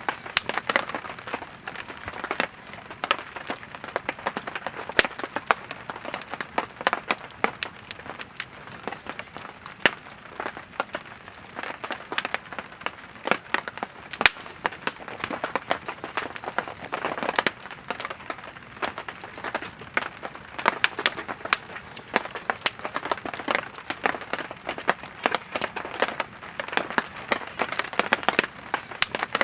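Campfire of burning firewood crackling, with irregular sharp pops over a steady hiss of flame, one pop louder than the rest about halfway through.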